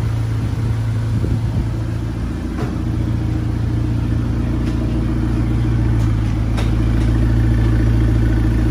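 Volkswagen Golf GTI MK6's 2.0-litre turbocharged four-cylinder engine idling steadily through its custom full exhaust, getting a little louder in the second half.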